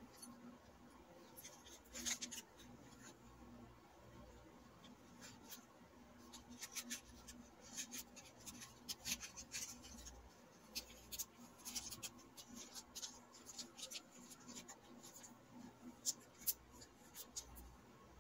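Small clear zip-lock plastic bag crinkling and rustling in the hands as a paper earring card is slid inside, in quiet, irregular little crackles.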